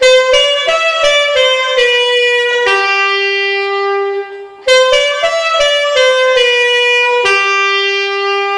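Alto saxophone playing a short melodic phrase (the written notes A-B-C#-B-A-G#-E) twice, each time stepping through quick notes and ending on a long held low note.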